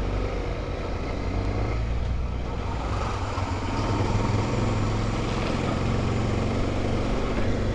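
Honda XRE300 motorcycle engine running steadily while riding, with road and wind noise.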